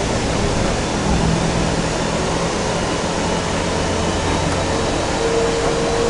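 Kinkisharyo light rail car heard from inside its passenger cabin while running along the line: a steady rumble and hiss, with a low hum underneath. A steady higher tone joins near the end.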